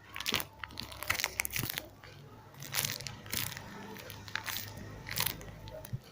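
A small foam squishy toy being squeezed and handled close to the microphone: a series of crinkly crunches in short clusters about a second apart.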